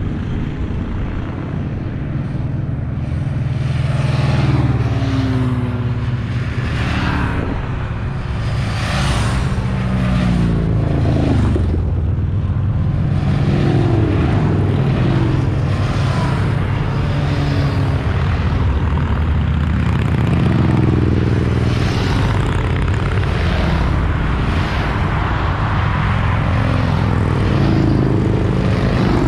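A procession of motorcycles riding past one after another, their engines rumbling in a dense low drone. Individual bikes' engine notes swell and drop in pitch as they go by.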